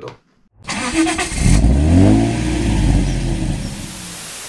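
Car engine revving up and back down after a short burst of hiss, fading near the end into a steady hiss of static.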